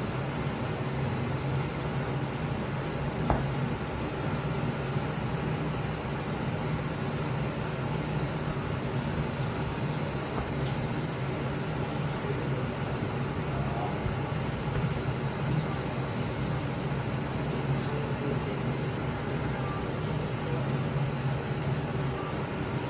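Steady low mechanical hum, like a fan or ventilation running, with a faint knock of a knife against a cutting board about three seconds in.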